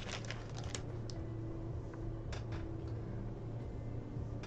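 Small hard plastic clicks and taps of Lego pieces being handled and pressed together, several in the first second and a few more spread through the rest, over a steady low hum.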